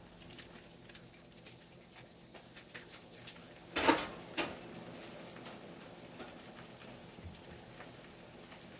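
Chicken party wings frying in oil in a skillet: faint crackling and sizzling patter. A couple of short knocks about four seconds in.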